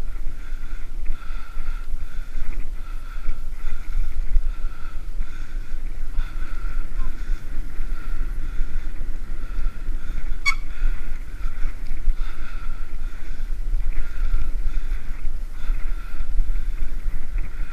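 Wind buffeting the action-camera microphone over the rolling noise of a bicycle riding at speed on a paved path, with a faint tone that pulses about once a second. A single sharp click comes about ten seconds in.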